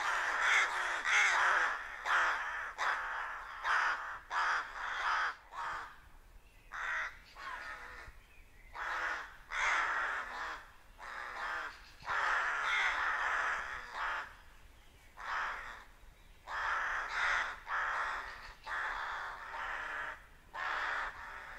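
A flock of rooks cawing, many harsh calls overlapping almost without pause, with two brief quieter spells about a third and two-thirds of the way through.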